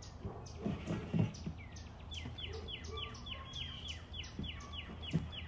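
A bird calling in a fast series of short downward-sliding chirps, about four a second, starting about two seconds in. A few low thumps come before the chirps, the loudest about a second in.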